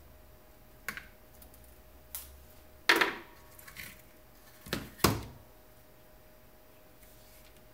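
LCD TV backlight inverter circuit boards being handled and set down on a bench: a few sharp clicks and knocks, the two loudest about three and five seconds in.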